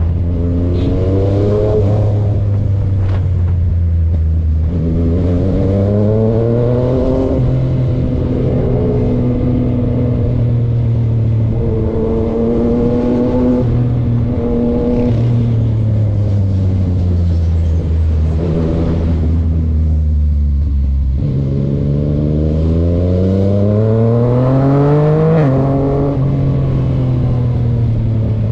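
Yamaha MT-09 motorcycle's three-cylinder engine running and revving, its pitch climbing and falling several times. Near the end there is a long steep climb that drops suddenly.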